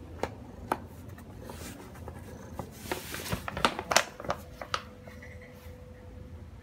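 Kraft paper mailer bag rustling and crinkling as a cat wriggles inside it, with scattered sharp paper crackles that bunch together about three to five seconds in.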